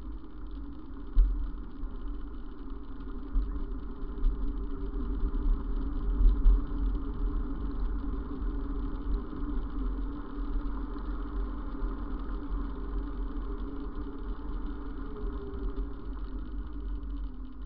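Steady rumble of road vibration and wind on a camera riding on a moving bicycle, with passing traffic engine noise. A few sharp knocks come about a second in and again around four to six seconds.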